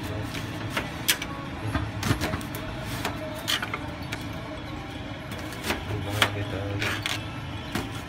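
Kitchen knife slicing through an onion on a thin plastic cutting board: each cut ends in a sharp click of the blade on the board, irregularly about one to two a second.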